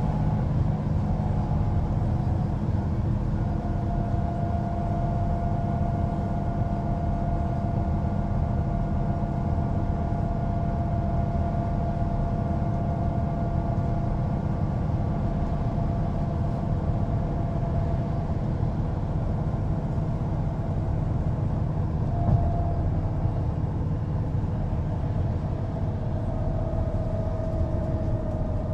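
Mercedes-Benz O405NÜ low-floor city bus's diesel engine running steadily under way, with a low rumble and a high drivetrain whine that drifts slowly in pitch. There is a brief knock about two-thirds of the way through.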